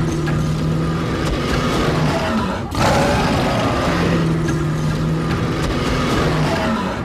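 Cartoon gorilla roar sound effect: two long, loud, rough roars, the second starting just under three seconds in.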